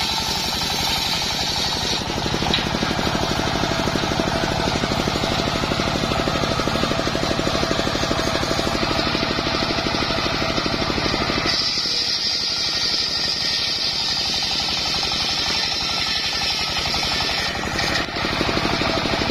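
Engine-driven circular saw bench ripping a mahogany log lengthwise into boards, the engine running with a rapid, even pulse under the blade's cutting noise. About two-thirds of the way through, the sound turns higher and thinner as the low rumble drops.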